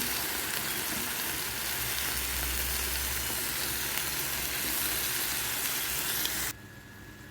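Marinated chicken pieces sizzling in hot oil in a frying pan, a steady hiss that cuts off suddenly near the end.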